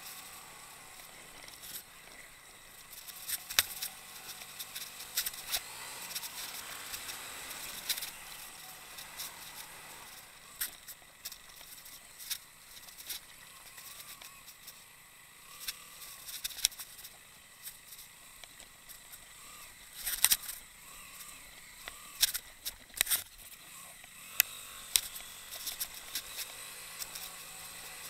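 Motorcycle riding slowly over a rough, rocky dirt track: the engine is faint under a steady hiss, broken by frequent sharp clicks and knocks as the bike jolts over stones.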